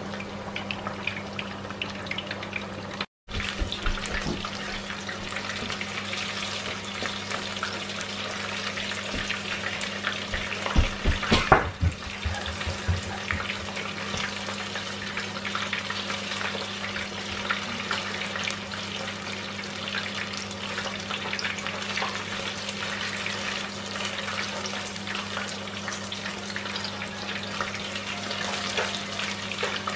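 Chicken wings deep-frying in hot oil in a pot: continuous sizzling and crackling over a steady low hum. Around 11–12 s a few sharp clacks, the loudest sounds, as the tongs knock against the pot while the wings are turned. The sound drops out briefly about 3 s in.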